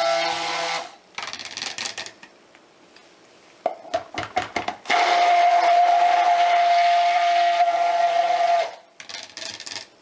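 Stick blender mixing cold process soap batter in two runs of its motor, a steady whine that stops about a second in and starts again near the middle for about four seconds. Between and after the runs come light knocks and clatter.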